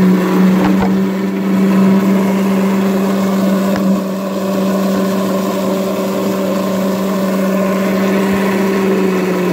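Small tap-driven water turbine generator spinning at full speed under a high-pressure water jet: a loud, steady hum with overtones over the rush and splash of the water.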